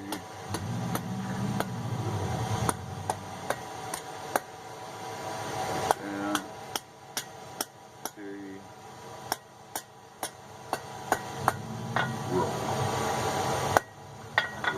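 Hand hammer striking hot steel on an anvil: a long run of sharp single blows at an uneven pace, as the tips of a small pair of forged tongs are scrolled. A low rumble swells and fades underneath.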